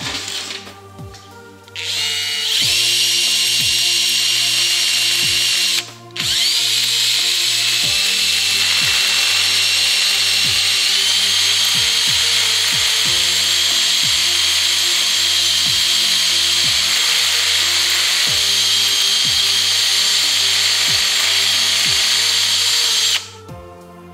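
High-speed rotary tool with a carbide burr grinding a small metal heatsink: it spins up with a rising whine about two seconds in, stops briefly, spins up again and runs as a steady high whine that steps up in pitch partway through, then cuts off shortly before the end. Background music plays underneath.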